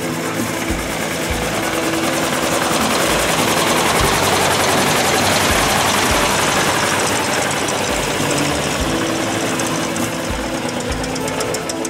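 A motor vehicle passing by, its noise building to a peak around the middle and then fading.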